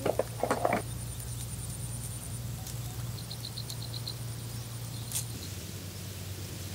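Quiet outdoor field ambience: a thin high steady whine over a low steady hum, with a quick run of about seven small high chirps about three seconds in and a single click a couple of seconds later.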